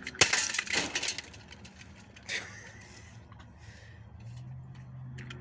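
A box fan being smashed: a loud clattering crash lasting about a second begins just after the start, a smaller hit follows about two seconds in, and a faint low hum sets in near the end.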